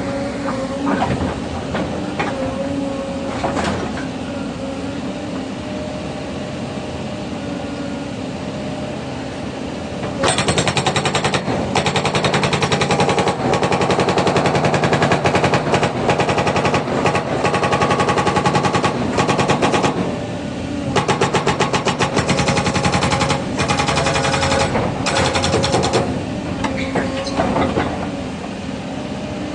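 Caterpillar 307 excavator's diesel engine running steadily, then its hydraulic breaker hammering in rapid blows from about a third of the way in. The hammering has a few short pauses and stops near the end.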